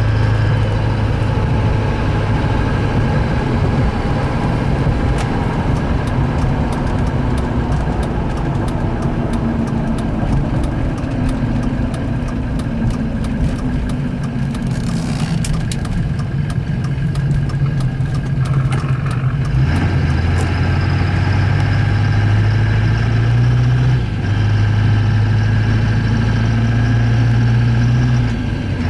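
Duramax turbo-diesel V8 in a 2500HD pickup running steadily while the truck is driven, fitted with a new S366 turbocharger. The engine note changes pitch about twenty seconds in, then steps again a few seconds later.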